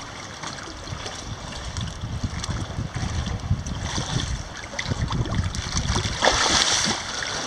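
Sea water splashing and sloshing around a swimmer, with a louder splash about six seconds in.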